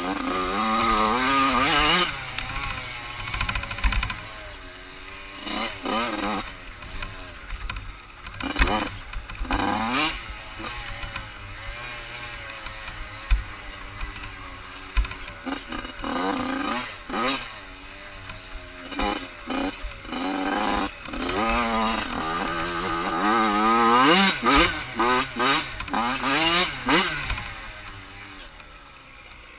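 Yamaha YZ85 dirt bike's two-stroke engine being ridden hard, its pitch climbing and falling again and again as the throttle is opened and shut. It drops to a quieter note near the end.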